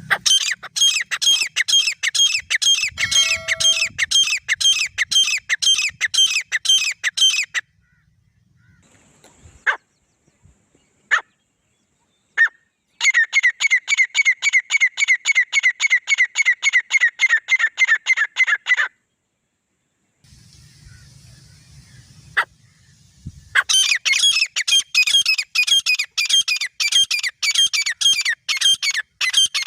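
Male and female grey francolins calling: three long bouts of fast, evenly repeated shrill notes, with a few single sharp notes in the gaps between bouts.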